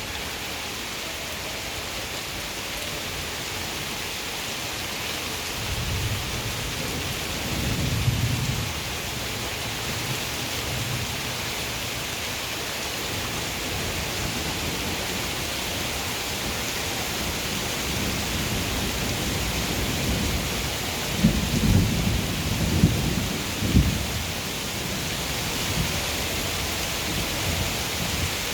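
Steady rain hiss with thunder: a low rumble swells about six to nine seconds in, and several sharp thunderclaps with rumbling come about two-thirds of the way through.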